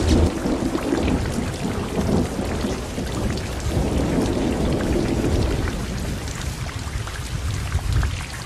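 Thunderstorm sound: steady rain with thunder rumbling, a loud roll at the start and another about four seconds in.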